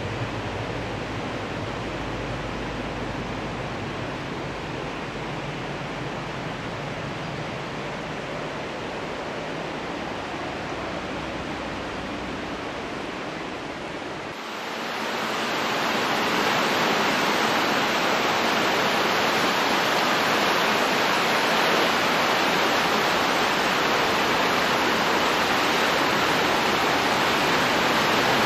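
Steady rushing of a fast mountain river, with the low rumble of a narrow-gauge train fading as it draws away. About halfway through, a cut brings a louder, brighter steady rushing noise.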